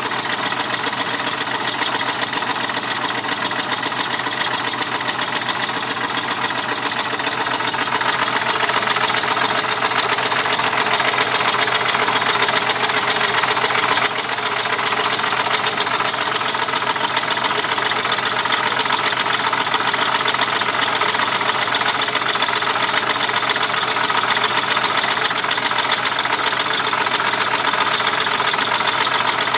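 Mercury Marauder's 4.6-litre DOHC V8 idling steadily with a rapid, even ticking running through it: the 'bad sound' the owner wants identified.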